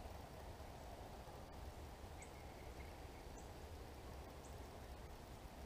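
Faint outdoor ambience with a low wind-like rumble, and a short high chirp repeating about once a second.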